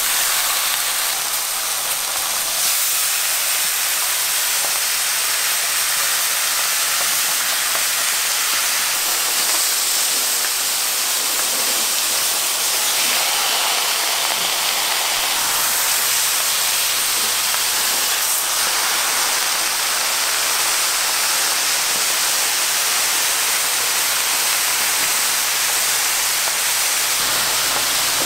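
Sliced bacon sizzling on a hot flat-top griddle: a steady hiss with no breaks.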